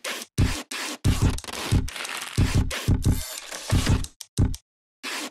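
Felt-tip marker dragged across corrugated cardboard in a quick series of separate scratchy strokes, each stopping sharply, with a short pause near the end before a couple more strokes.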